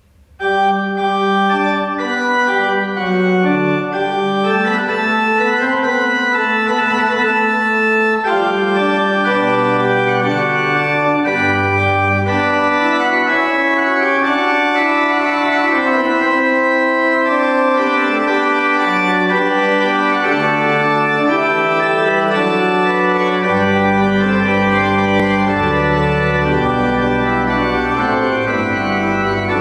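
Pipe organ playing slow, sustained chords. Deep bass notes join near the end.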